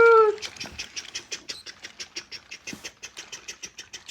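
A long string of toy train cars rolling down the track, their wheels clicking over the track joints in a quick, fairly even run of about six to eight clicks a second that grows fainter near the end.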